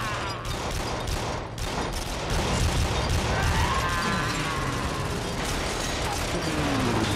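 War-film battle sound effects: a dense barrage of rapid gunfire, the shots coming close together without a break. A shrill whine glides up and down a few seconds in.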